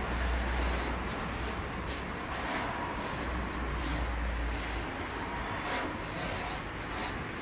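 Brush scrubbing rust converter onto the rusty underside of a 1953 Chevrolet 3100 pickup's cab, in repeated rubbing strokes. A low hum runs under it for the first few seconds.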